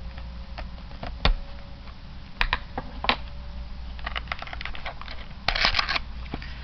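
Fingers handling and working open a small cardboard trading-card deck box: scattered sharp clicks, the loudest a little over a second in, then crackly rustling around four seconds and again between five and six seconds in.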